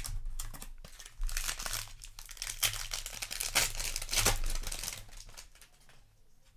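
Foil booster-pack wrapper crinkling and tearing, a dense crackle that thins out near the end.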